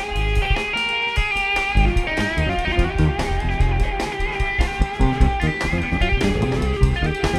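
Live jazz-fusion band playing: a melodic electric guitar line over electric bass and a drum kit, with steady cymbal and drum hits throughout.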